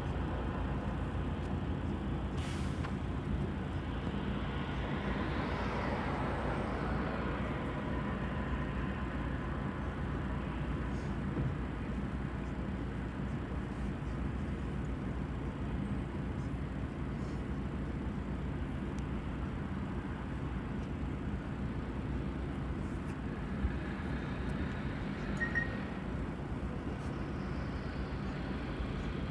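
City bus in motion, heard from inside the cabin: a steady low engine drone with road noise. There is a brief sharp sound about two and a half seconds in, a swell and fade in the higher noise a few seconds later, and a short high beep near the end.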